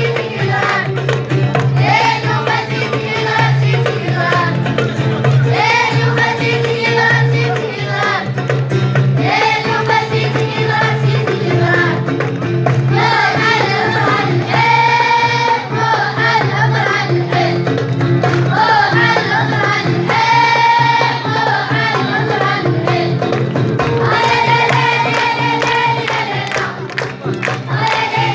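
School vocal group singing an Amazigh folk song together, with musical accompaniment.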